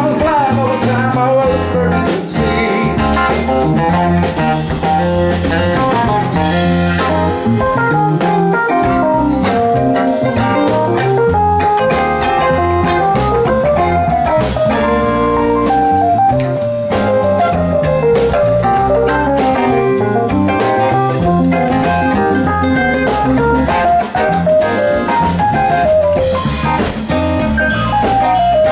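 Live rock band playing: electric guitars, electric bass, drum kit and keyboard, with melodic lead lines moving over the full band.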